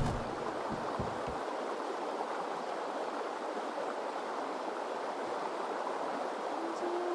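Steady rushing of a flowing river. The last low plucked double bass notes die away in the first second or so, and a held musical note comes in near the end.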